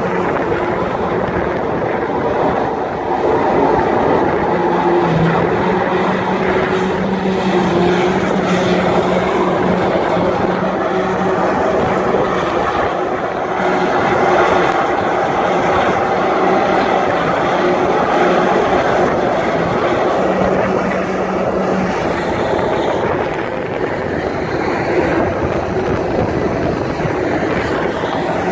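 High-pressure drain jetter running steadily, a constant engine and pump hum under the hiss and rush of water jetting through a concrete box culvert and pouring out the far end.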